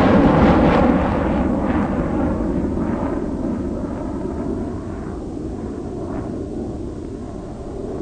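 Wind rushing over the microphone with a motorcycle engine running underneath as the bike rides along. The noise gradually eases as the motorcycle slows.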